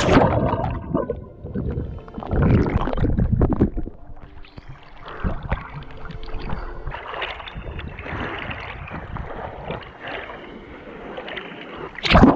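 Sea water splashing and gurgling around a handheld action camera as a swimmer swims at the surface. It starts with a loud underwater rush and another loud burst comes near the end as the camera dips under, with choppier sloshing in between.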